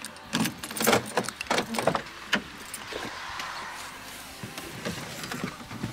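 Someone getting into a car: a run of knocks and clicks from the door and the body shifting in the first two seconds or so, then a steady hiss of rain.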